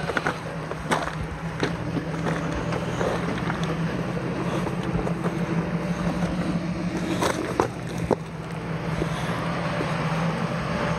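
Rock-crawler buggy's engine running steadily while the rig works against a rock ledge, with several sharp knocks and scrapes of tyres and rock, the loudest about seven and a half seconds in.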